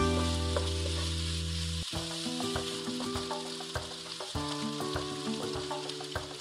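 Cherry tomatoes and chopped vegetables sizzling steadily in a hot nonstick skillet while being stirred with a wooden spoon, over soft background music with held notes.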